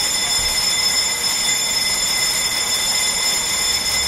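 Ueda Kotsu round-window electric railcar Moha 5251: a steady, even running noise with several high, steady whining tones on top.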